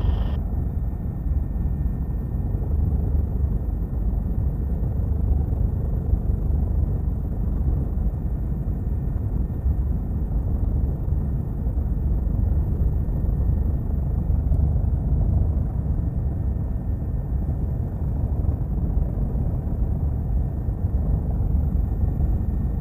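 Helicopter engine and rotor noise heard from inside the cabin in level flight: a steady, deep drone with no changes.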